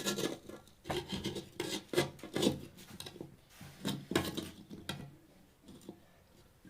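Irregular scraping and rubbing with light knocks as a sticky cooked jaggery-and-turmeric mixture is scraped up and rolled by hand into small balls. The sound dies down near the end.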